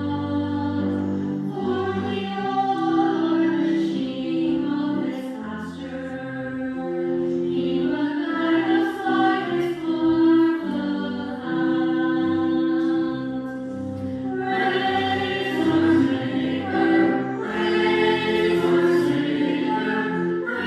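Church choir singing, with held chords moving from note to note.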